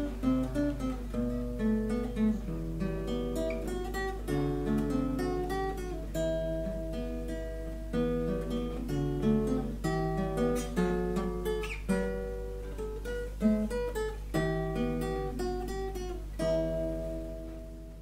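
Acoustic guitar music, plucked notes in a slow melody, fading out near the end.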